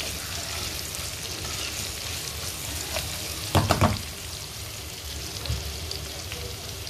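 Sliced onions sizzling in hot oil in a non-stick pan as a plastic spatula stirs them, with a brief clatter of the spatula in the pan a little past halfway.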